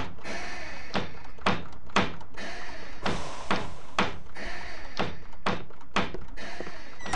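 A series of sharp knocks, about two a second, keeping an even beat.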